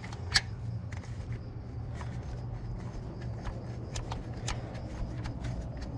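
Scattered light clicks and taps of parts and tools being handled, with one sharper click about half a second in, over a steady low hum.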